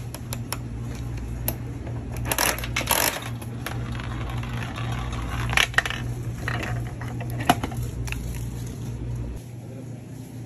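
Coin-operated gumball machine being worked by hand: metal clicks as a coin goes into the coin mechanism, a rattling grind as the knob is turned, then sharp clacks as a gumball drops down the plastic spiral chute to the delivery door.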